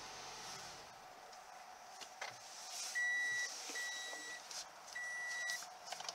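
A 2016 Toyota RAV4 Hybrid's lights-on reminder chime sounds, starting about three seconds in. It is a steady high beep, about half a second long, repeated about once a second, four times. It signals that the car is switched off with the headlights still on. There is a single click about two seconds in.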